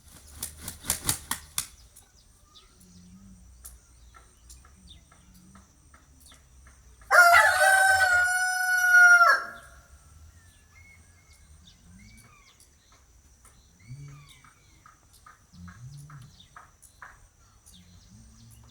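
A rooster crowing once, a single call of about two seconds and the loudest sound here, about seven seconds in. Near the start a quick run of about six wing flaps.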